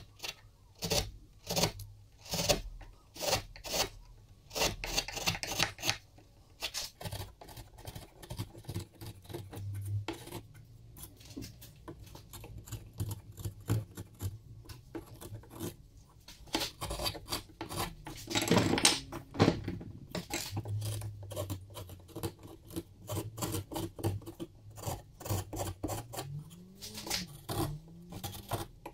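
Steel bench chisel paring a spalted beech plane tote by hand: a long series of short, crisp slicing and scraping strokes, some in quick runs. One longer, louder stroke comes about two-thirds of the way through.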